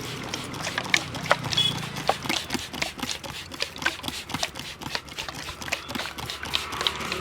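Quick, irregular slaps and pats of a barber's hands on a customer's head during a traditional Indian head massage (champi), several strikes a second.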